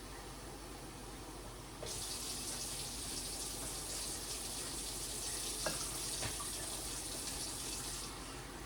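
Kitchen tap running water into a container. The flow gets heavier about two seconds in and eases off near the end, with a couple of light clinks in the middle.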